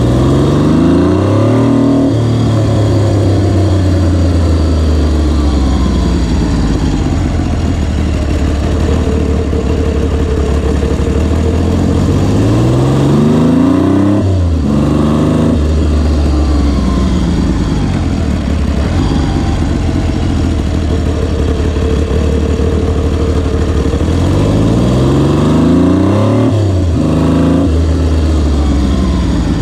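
BSA Rocket III's three-cylinder engine under way on the road. Its pitch climbs under acceleration and drops abruptly at a gear change three times: near the start, about 14 seconds in and about 27 seconds in. Between those, the pitch eases down as the throttle is rolled off.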